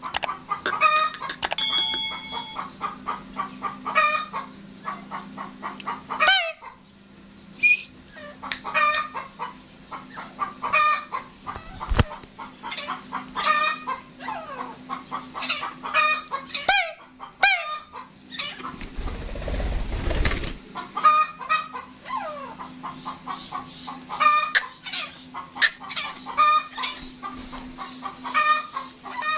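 Gray francolin calling over and over, loud short notes repeated in quick phrases with brief pauses. A steady low hum sits beneath, and a brief low rumble comes about two-thirds of the way through.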